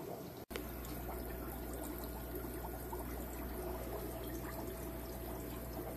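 Aquarium filtration running: water trickling and bubbling steadily over a low, steady hum.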